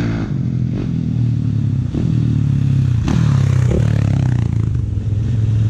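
Off-road motorcycle engine running at a steady low speed, with a couple of sharp clatters about two and three seconds in.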